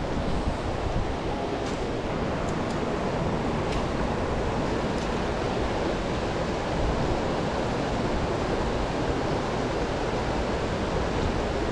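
Steady rushing of flowing river water, an even unbroken noise.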